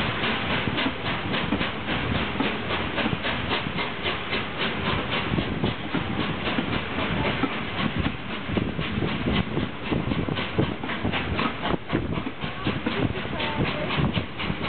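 Peppercorn A1 Pacific steam locomotive 60163 Tornado arriving with a long train of coaches: a steady hiss of steam, with wheels clicking over rail joints.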